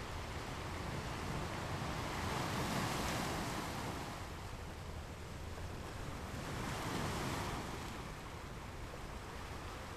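Ocean waves washing in, two swells of surf rising and falling, the first peaking about three seconds in and the second about seven seconds in.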